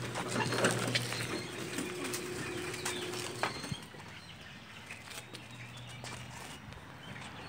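Rustling and scattered knocks of a phone being handled and moved close to the mic, with a low steady hum that stops a little over a second in. It gets quieter about halfway through.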